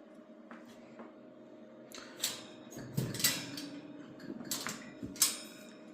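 A few sharp clicks and clinks, the loudest about two, three and five seconds in, over a steady low hum.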